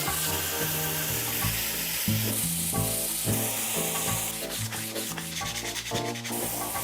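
Sandpaper held against a wooden handle spinning on a lathe, a steady hiss of sanding that eases off about four seconds in and picks up again near the end. Background music with a walking bass plays throughout.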